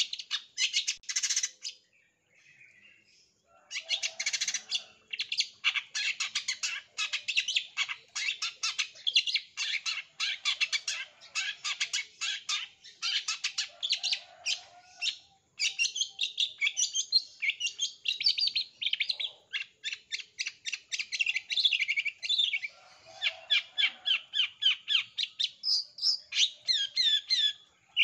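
Long-tailed shrike (cendet) singing a long, loud run of sharp, rapid-fire chattering notes, several a second, after a short pause about two seconds in. Near the end the notes turn into quick downward slurs.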